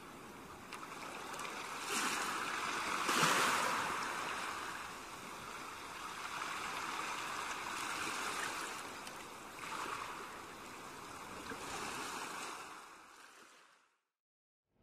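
Small sea waves washing and breaking in the shallows at the shoreline, swelling and ebbing several times, then fading out a little before the end.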